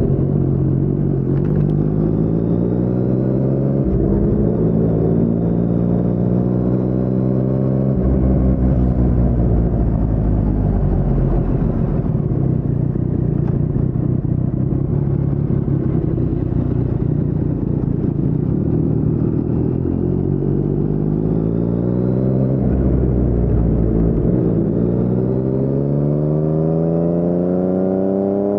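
2019 Yamaha MT-09's 847 cc inline-three engine through an Akrapovic carbon full-system exhaust with no dB killer, heard from the rider's chest while riding. The note climbs through a couple of gear changes, eases off and holds a lower steady run through the middle, then climbs again with another shift near the end.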